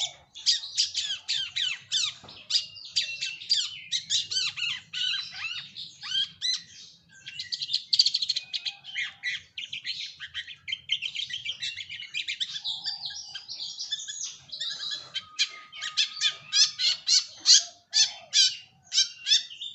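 Long-tailed shrike (cendet) singing a fast, continuous chattering song of rapid high chirps and squawks, with a brief held whistle-like note about three-quarters of the way through.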